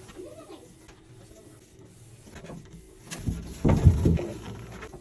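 Hard objects knocking and clattering in a short burst about three seconds in, the loudest part, after a few quieter knocks.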